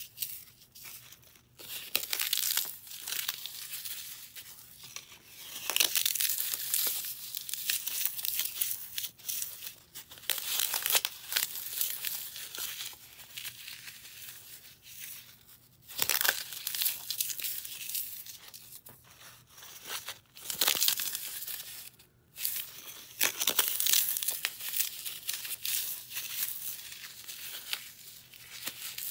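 Dry floral foam coated in baby powder and gym chalk being crushed and crumbled between the fingers: a dense, crisp crunching crackle that comes in waves with short pauses.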